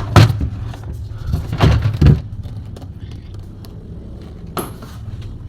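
Knocks and clatter of plastic fridge panels being handled and pulled free, several in the first two seconds and one sharp knock near the end, over a steady low hum.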